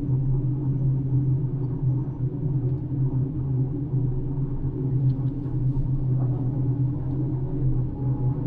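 Floating crane's engine running steadily: a constant low rumble and hum with no change in pitch.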